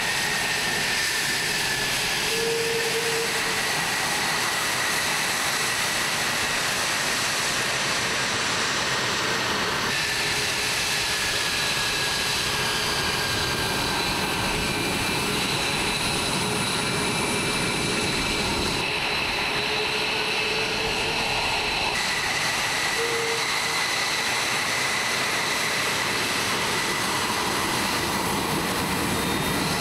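F-22A Raptor jet engines running at low power while the fighters taxi. The jet noise is loud and steady, with high turbine whines that drift slightly in pitch.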